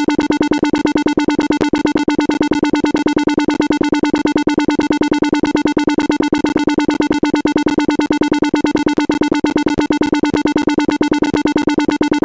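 A loud, harsh electronic synthesizer tone held at one unchanging pitch and pulsing very rapidly, with no melody.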